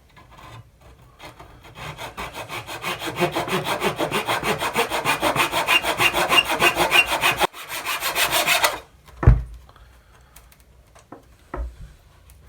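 Fine-toothed razor saw cutting through thin wooden capping strip in quick back-and-forth strokes, several a second, getting louder as the cut goes on and stopping about nine seconds in. A sharp thump follows just after, then a lighter knock near the end.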